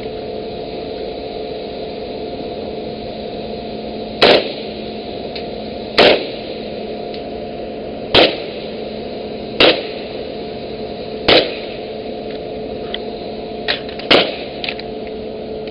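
Gunshots fired one at a time, five loud cracks about two seconds apart, then a few fainter cracks near the end, over a steady drone of the ship's engines.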